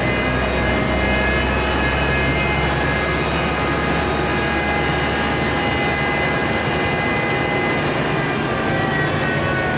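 Inside a BKM-32100D trolleybus under way: steady road rumble with the whine of its electric traction drive, several steady tones at once that begin to slide in pitch near the end.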